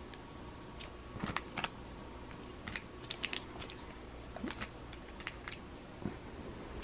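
Scattered light crinkles and clicks of clear plastic packaging bags as the bagged accessories are handled and set down.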